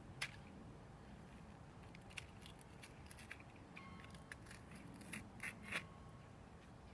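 Plastic toy cap gun being handled and pressed: scattered small clicks and rubbing of its mechanism, with a sharper click about a quarter second in and a quick run of clicks near the end.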